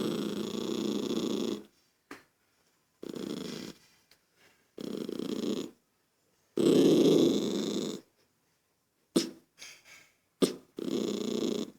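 Toy poodle growling in about five rough, drawn-out rumbles of a second or so each, with a few short clicks between them; the dog is irritated by a child's noise.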